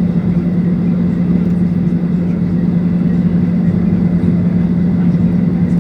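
Boeing 737-800 on the ground, heard from inside the cabin: a loud, steady drone with a strong low hum.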